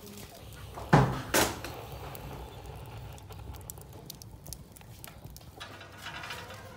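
Dry stalks and firewood being fed into the firebox of a wood-fired brick stove: two loud knocks about a second in, then the fire crackling faintly with small clicks.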